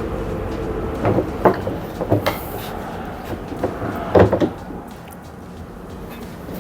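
Plastic tub ring being handled and fitted onto a top-load washer's tub: a series of short knocks and clacks, loudest about four seconds in.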